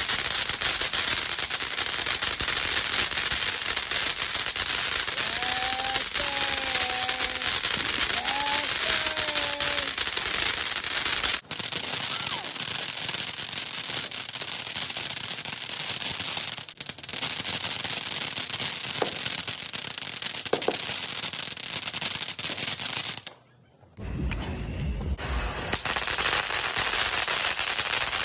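Fireworks going off in a dense, continuous crackling barrage of rapid pops, with an abrupt brief dropout near the end.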